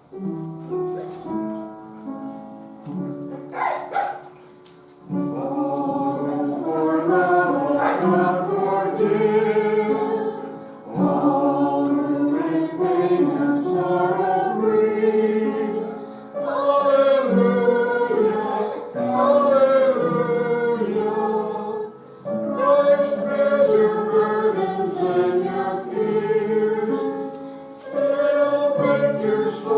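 A congregation singing together in a church service, in phrases with short breaks between them, after a quieter opening of held notes lasting about five seconds.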